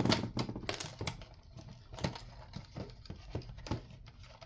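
Irregular small clicks and light knocks of parts being handled while a radio is taken apart, about two or three a second, the loudest right at the start.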